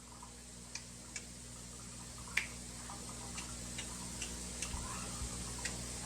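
About nine light, sharp clicks or taps at uneven intervals, the loudest a little over two seconds in, over a steady low electrical hum.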